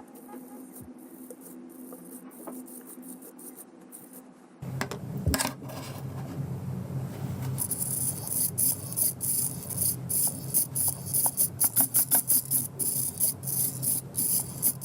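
Small steering servo of a 3D-printed 1/42 RC drift car working, turning the front wheels back and forth through its linkage. After a quiet start, a steady low hum comes in suddenly about four and a half seconds in, and from about eight seconds on the servo's rapid, irregular buzzing bursts and ticks come several times a second.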